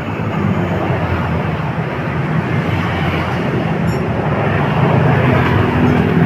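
Yamaha Vega R's single-cylinder four-stroke engine running steadily after a top-end rebuild, its pitch shifting slightly, with a noisy rush over it.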